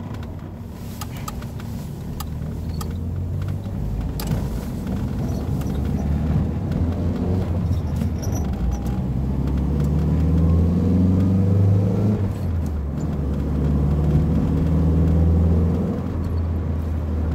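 Chrysler 2.2-litre four-cylinder engine under hard acceleration in a manual car, heard from inside the cabin. The revs climb and grow louder, drop back at a gear change about twelve seconds in, then climb again before another shift near the end. The cam timing is set a tooth advanced, which the owner credits for its strong pull down low.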